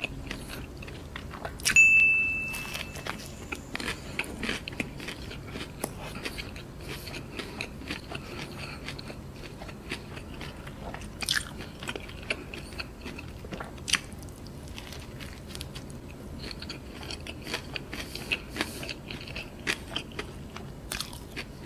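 Close-up mouth sounds of a person biting and chewing a KFC Zinger burger with curry sauce: irregular soft crunches and wet chewing clicks. About two seconds in there is a louder moment with a short high ringing tone that fades out.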